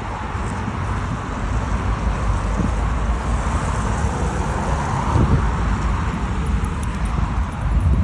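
Steady heavy traffic on a multi-lane urban motorway: a continuous rush of tyres and engines with a low rumble, swelling about halfway through as vehicles pass.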